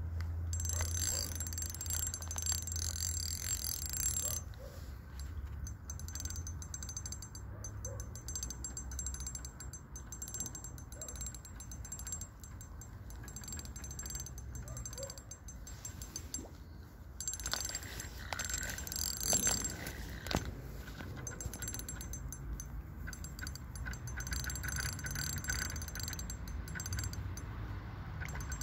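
Fishing reel ratcheting in spells of fast, fine clicks with a high ringing edge, over a steady low rumble. A carp is being played and is swirling at the surface.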